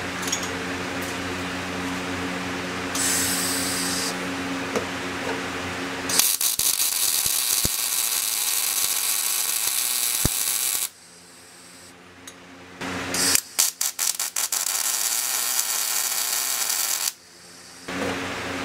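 Wire-feed welder arc crackling and sputtering in two runs of about four to five seconds each, the first starting about six seconds in, with a short pause between them. Before the welding, a steady mechanical hum with several fixed tones.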